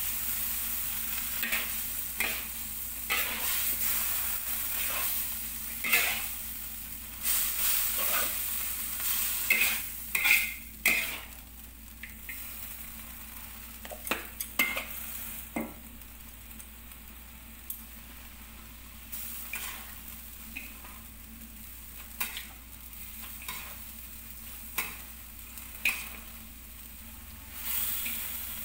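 Fried noodles and vegetables sizzling in a hot wok while a metal spatula stirs and tosses them, with repeated scrapes and clanks of the spatula against the wok. The sizzle and stirring are louder in the first half and settle down after about twelve seconds.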